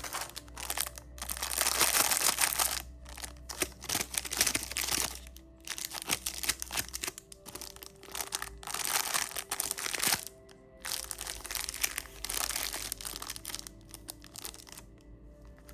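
Plastic candy wrappers crinkling and crackling as lollipops are unwrapped by hand, in about five bursts separated by short pauses, over soft background music.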